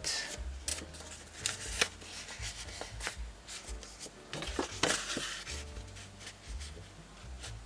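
Sheets of folded paper being handled as a stack: crisp rustles and a few light taps and slides of the paper.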